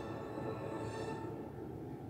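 Background music with sustained, held tones.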